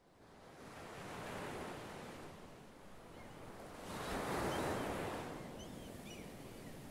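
Ocean surf washing in as a steady hiss that swells twice, most strongly about four seconds in. A few faint high chirps come near the end.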